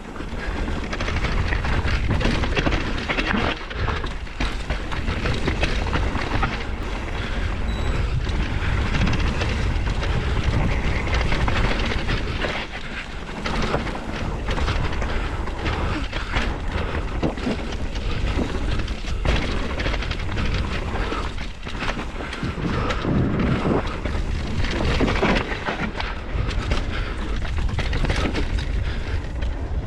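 Mountain bike descending a rough trail at speed: wind rumbling on the camera's microphone, with tyre noise and frequent knocks and rattles of the bike over bumps.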